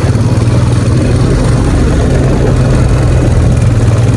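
ATV (four-wheeler) engine running steadily while riding along a dirt road, a loud, even low drone.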